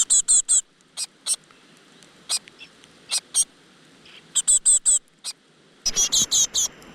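Great tit nestlings begging with short, high-pitched cheeps, some single and some in quick runs of three or four. Near the end the cheeping turns into a dense, continuous run over a low rustle.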